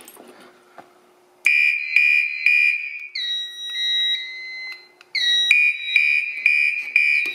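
Fire alarm horns on a conventional fire alarm system going off together in a drill, set off by turning the test station key to Test. After a faint click, a loud high horn tone starts about a second and a half in, sounding in pulses. It alternates with a steadier, lower-pitched alarm tone.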